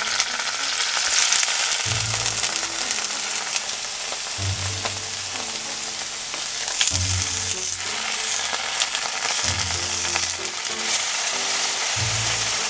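Tofu blocks sizzling steadily as they pan-fry in hot oil in a nonstick frying pan.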